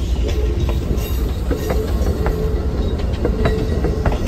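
Train running along the rails, with a steady low rumble and scattered sharp clicks of wheels over the rail joints.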